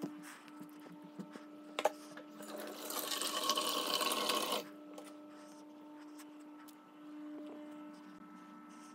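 Water from a kitchen sink tap running into a small stainless steel dog bowl, a steady hissing splash for about two seconds that cuts off when the tap is shut. A single sharp knock comes just before the water starts.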